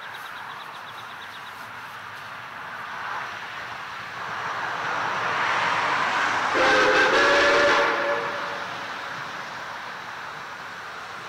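Rx class steam locomotive Rx224 approaching, its running noise swelling. About halfway through it gives one whistle blast of about a second and a half, several notes sounding together, then the noise eases off.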